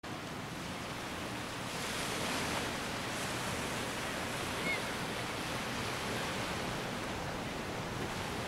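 Small waves lapping and breaking on a sandy beach, a steady wash of surf.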